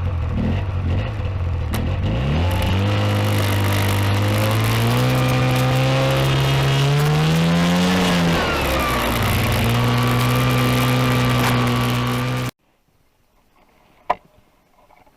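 Vehicle engine under way, rising steadily in pitch as it speeds up, easing off, then running at a steady speed; it cuts off suddenly near the end.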